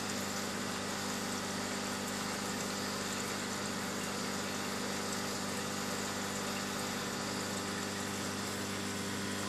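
Steady hum of an aquarium pump: a constant low drone with an even hiss above it.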